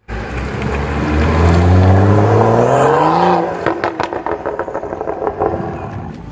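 A car accelerating away, its engine note rising steadily for about three seconds. As the throttle is lifted, the engine drops away into a quick run of sharp pops.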